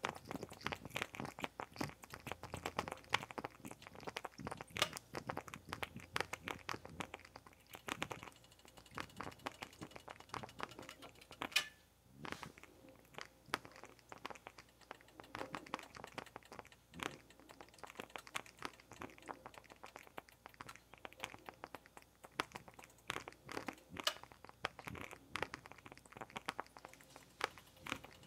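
Bialetti Mini Express moka pot on an electric coil burner, crackling and popping irregularly as it brews, with one sharper pop about halfway through.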